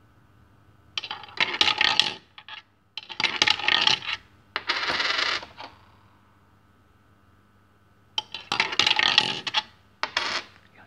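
Coins fed into a JY-922 coin acceptor, clattering and rattling as they drop through its coin path. The clatter comes in bursts, with several through the first half and two more from about eight seconds in.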